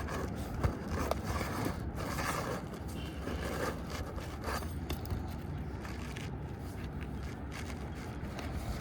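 Asphalt shingle scraping and rustling against the shingles above as it is pushed and worked upward into place, in irregular strokes, with something under the upper course stopping it from seating.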